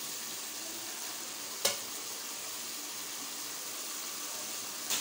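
Curry masala sizzling steadily in oil in a kadhai while being stirred with a spatula. There is a sharp knock about a second and a half in and another near the end.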